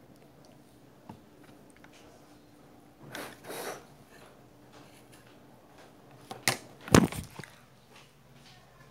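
Handling noise of the phone that is recording and the makeup in hand. There is a brief rustle about three seconds in, then a sharp click and a louder knock with a dull thud about six and a half to seven seconds in as the phone is moved.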